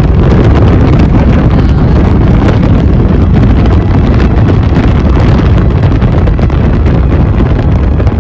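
Loud, steady wind rushing over the microphone of a camera filming from a moving car, mixed with the car's road noise.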